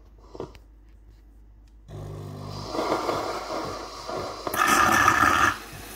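DeLonghi PrimaDonna Elite's milk carafe starting to froth and dispense milk: a few faint clicks, then about two seconds in a pump hum starts, followed by steam hissing and gurgling through the milk spout, loudest for about a second near the end before easing.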